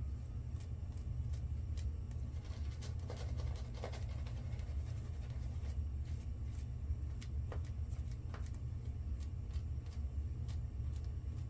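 Steady low background hum, with faint scattered ticks and small handling sounds.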